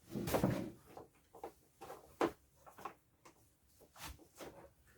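Scattered knocks, clicks and rustling of wiring and parts being handled, with a brief rustle at the start and the sharpest knock a little over two seconds in.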